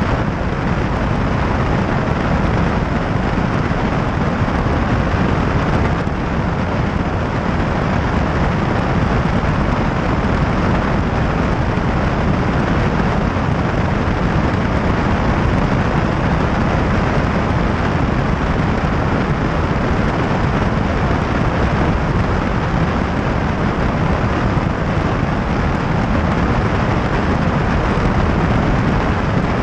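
Light single-engine high-wing airplane in level flight: a loud, steady, even noise of engine, propeller and rushing air, with no change throughout.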